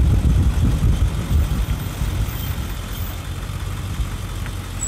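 Truck engine running, a steady low-pitched engine sound that is louder for the first second or so and then settles lower.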